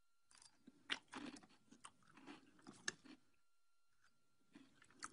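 Faint crunching of a mouthful of cereal being chewed: a run of crunches for about three seconds, a short pause, then more crunching near the end.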